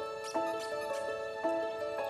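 Background music: a short phrase of ringing pitched notes that repeats about once a second.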